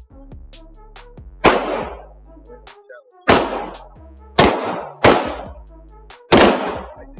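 Five shots from a .22 pistol at uneven intervals, each sharp crack trailing off in a short echo. Background music plays under the shots.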